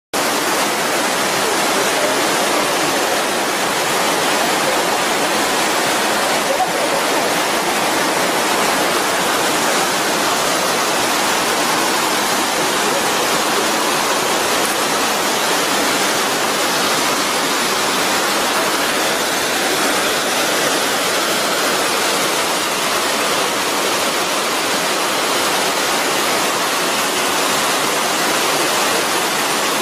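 Mountain stream and cascade rushing close by: a loud, steady wash of water over rocks and a concrete spillway.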